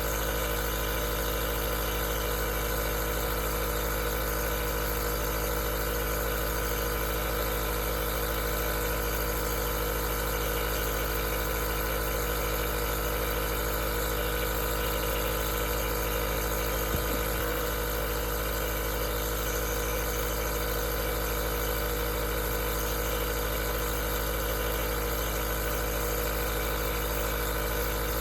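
Aerosol nebulizer's compressor running steadily: a constant low hum with steady tones and a hiss of air, with one faint tick partway through.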